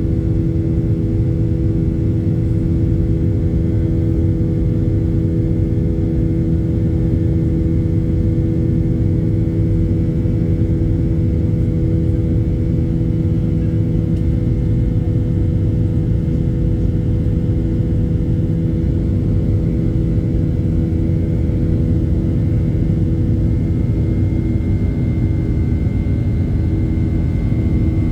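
Cabin noise in a Boeing 737-800 during the climb after takeoff: a steady low rumble from the CFM56-7B jet engines and airflow, with a steady droning hum over it. A faint high whine rises slightly in the last few seconds.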